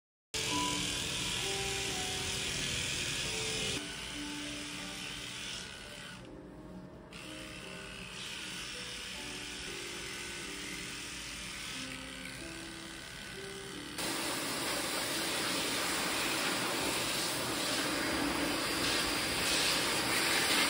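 Electric pet clippers buzzing while shaving a dog's coat, with soft background music. About two-thirds through, a louder, steady rushing noise takes over: a pet grooming dryer blowing.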